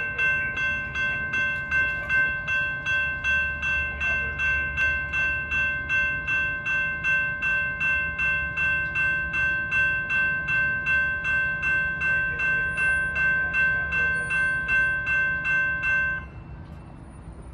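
Railroad grade-crossing warning bell ringing in a steady, rapid rhythm of about three strikes a second while the signals are activated for a test. It cuts off suddenly near the end, as the gate arms come fully down.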